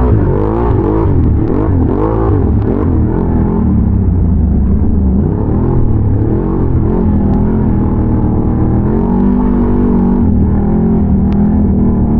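Can-Am Renegade ATV's big-bore V-twin engine under riding load, revving up and down several times in quick succession. About halfway through it settles to a steadier drone.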